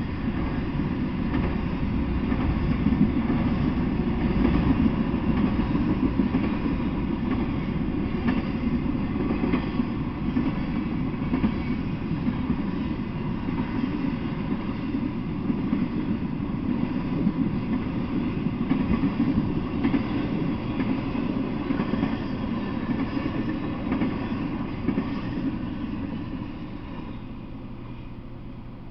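Intermodal freight train of trailers and containers on flatcars passing, a steady rumble of wheels on the rails. It dies away near the end as the last cars go by.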